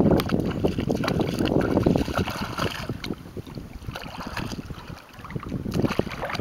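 Boxer puppy wading through shallow water, its paws making irregular splashes, with wind rumbling on the microphone for about the first two seconds.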